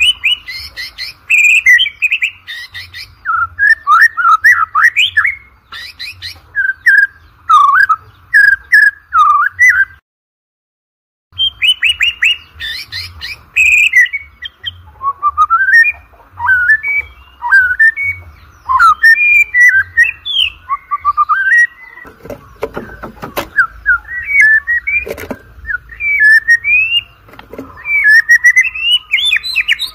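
White-rumped shama singing: a rapid, varied stream of loud whistled phrases, rising and falling notes and chattering trills, broken once by a gap of about a second roughly ten seconds in.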